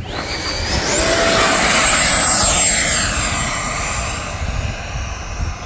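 Electric ducted fan of an FMS F-86 Sabre 80mm RC jet, a loud high whine that climbs steeply in pitch in the first second as the throttle is pushed up, as for the go-around of a touch and go. It holds at its top pitch while the jet passes close, loudest two to three seconds in, then fades about four seconds in as the jet moves away.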